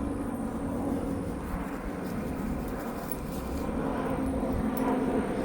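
Steady car running noise with a low hum, heard from inside the cabin while driving.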